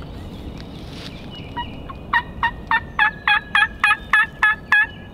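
A man imitating a hen turkey's yelping with his own voice, hand cupped over his mouth. About two seconds in, a run of about ten short notes comes three or four a second, each dropping in pitch.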